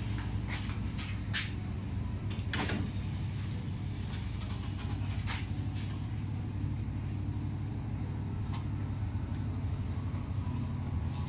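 Sharp clicks and knocks as a windshield on suction cups and its setting tool are handled and lowered onto a car's windshield frame: several in the first second and a half, the loudest about two and a half seconds in, then a few fainter ones. Under them, a steady low hum.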